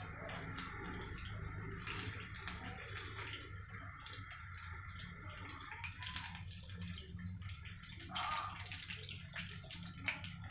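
Mushroom pakodas deep-frying in hot oil: a steady sizzle with dense crackling.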